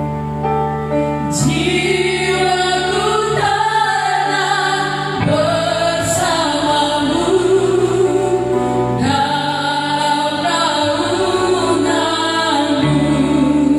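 Four women singing a Christian praise song together into microphones, with electric keyboard accompaniment. Held keyboard chords sound alone at first, and the voices come in about a second and a half in.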